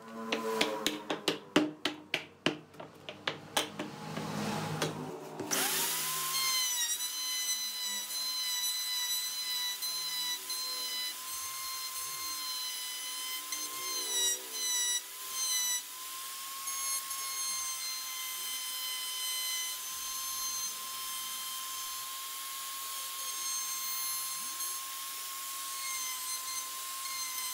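A quick run of sharp knocks for the first few seconds, then an electric wood router spins up with a rising whine and runs on at a steady high pitch as it cuts across a wooden table top, briefly dipping a couple of times midway.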